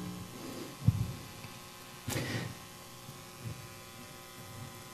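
A pause in a talk through the hall's sound system: a faint steady hum, with a soft low thump about a second in and a short, faint rustle about two seconds in.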